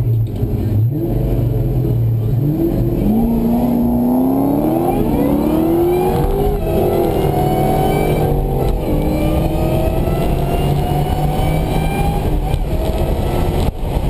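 SVT Cobra Mustang V8 heard from inside the car on a drag launch: it holds a steady low note at the line, then climbs in pitch through the gears with breaks at each shift, and backs off near the end.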